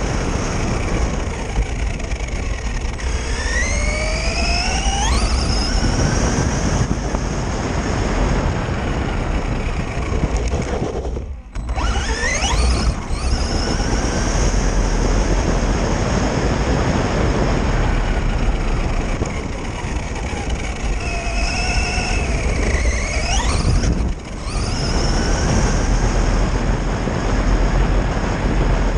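Electric Quantum Flux RC car running at speed on a 3S battery: a high motor whine rises sharply in pitch twice, a few seconds in and again a little past the middle, over a steady rushing noise.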